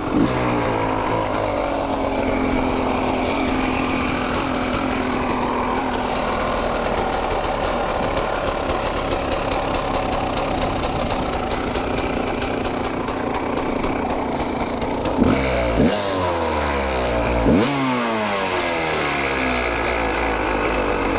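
KTM 300 XC-W single-cylinder two-stroke engine running, blipped twice near the end with the revs rising and falling back. A rattle from the expansion chamber, whose mounting bolt has vibrated loose, rides on the engine note.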